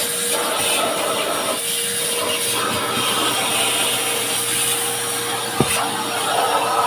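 Vacuum cleaner running steadily with a constant hum, its nozzle scraping and rubbing over surfaces, and one sharp knock about five and a half seconds in.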